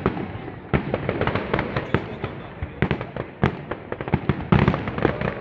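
Aerial fireworks going off in a rapid, irregular barrage of bangs, several a second, over constant crackling.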